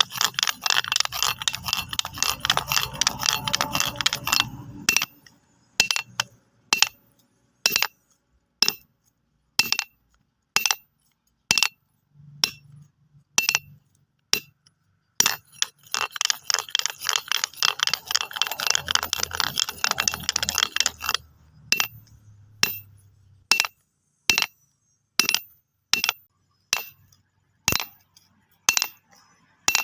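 Stones clicking and clacking together in two stretches of rapid rattling, the first lasting about five seconds and the second from about fifteen to twenty-one seconds in, with single sharp knocks about once a second in between.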